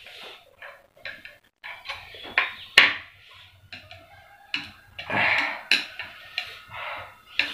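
Chopsticks clicking and scraping against a plate as a man eats spicy instant noodles, with chewing and slurping between. Two sharp clicks a little over two seconds in are the loudest, and a longer noisy stretch of eating follows around five seconds in.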